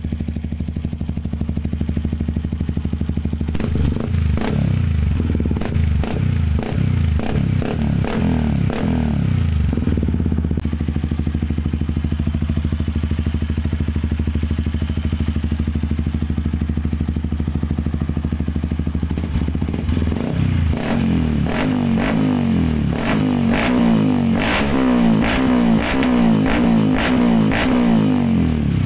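Yamaha WR155's 155 cc single-cylinder engine running through a Norifumi aftermarket exhaust pipe, idling steadily and revved in quick repeated throttle blips twice: a burst about four seconds in, idle again, then a longer run of blips in the last third.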